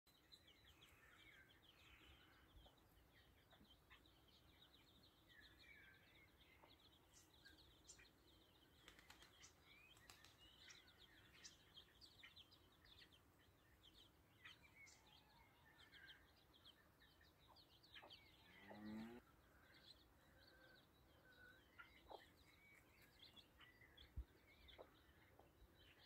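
Chicks peeping, many faint short high notes over and over, with a hen's single louder, lower call about two-thirds of the way through.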